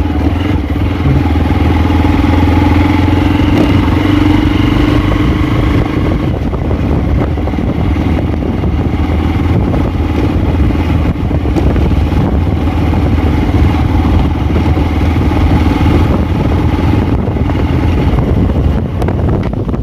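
Hero Xpulse 200's 200 cc single-cylinder engine running steadily as the motorcycle is ridden slowly along a dirt track.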